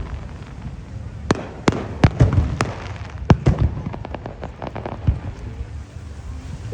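Fireworks going off: an irregular run of sharp bangs and crackles over a low rumble, thickest from a little over a second in to about two and a half seconds.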